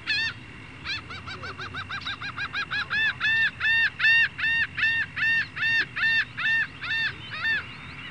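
A large bird calling in one long series: quick short notes about five a second that slow into louder, longer drawn-out notes about two a second, fading near the end.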